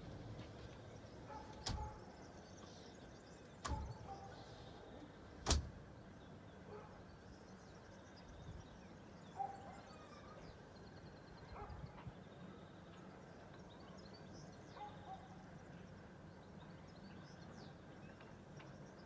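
Faint outdoor ambience, a low steady background noise, broken by three sharp knocks in the first six seconds, the third the loudest, with a few faint short chirps later on.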